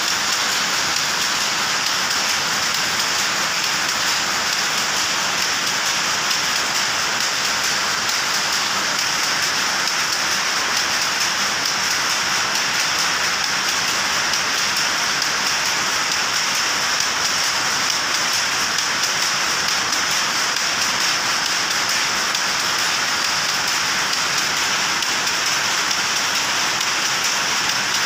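Many powerlooms running together in a weaving shed: a loud, steady, dense clatter of very fast ticks, unbroken throughout.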